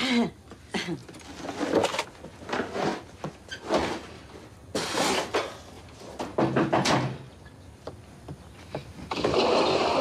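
Hurried household clatter: a run of thumps, knocks and rustling as things are stuffed into a closet and its door is worked, with a longer rush of noise near the end.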